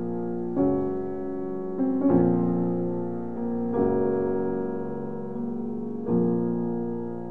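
Slow background piano music: soft chords struck every second or two and left to fade.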